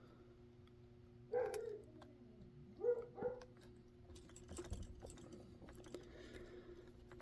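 Faint light clicks of a pick working the pin stack inside a Zeiss Ikon lock's keyway during single-pin picking, over a steady low hum. Three short pitched yelps, about one and a half and three seconds in, stand out above the clicks.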